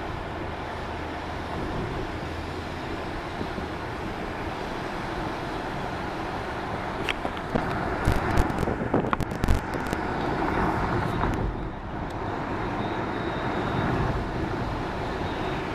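Steady road and engine noise of a vehicle driving along a city street, with a cluster of sharp rattles and knocks about halfway through.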